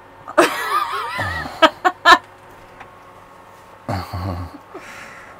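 Giggling laughter, high and wavering, with three sharp clicks about two seconds in, then a short, lower laugh near four seconds.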